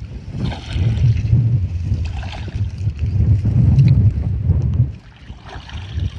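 Wind buffeting the microphone outdoors, a loud gusting rumble that eases briefly near the end, with patches of hiss above it.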